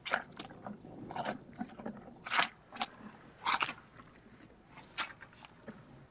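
Rhinoceros chewing, a string of irregular crunches that thin out near the end.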